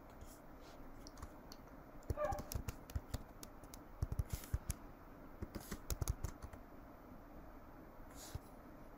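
Keys tapped on a computer keyboard as a password is typed in: a faint, uneven run of keystroke clicks from about two seconds in to past the middle.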